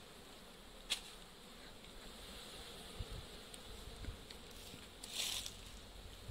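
Indian honey bees (Apis cerana indica) buzzing faintly around an opened hive box, with a sharp click about a second in and a short hiss about five seconds in.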